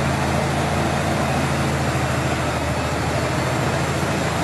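Crawler bulldozer's diesel engine running steadily under load as the machine pushes a pile of dirt, with a steady rushing noise over it.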